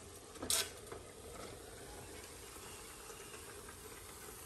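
Soft boiled eggplant pieces being scraped off a plate into a pan of simmering masala: a brief soft splat about half a second in, then a few small taps, over a faint steady sizzle from the pan.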